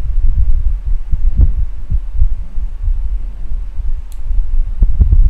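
Low, uneven rumble over a steady hum on the microphone, with a single sharp click about four seconds in.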